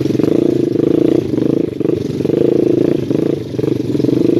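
Quad ATV engine running under throttle on a rough trail, its revs dipping briefly twice and picking back up.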